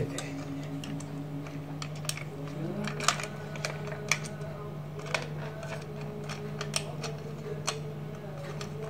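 Small, irregular clicks and taps of hands handling an LED work light and fiddling with its bracket screw and small fittings, over a steady low hum.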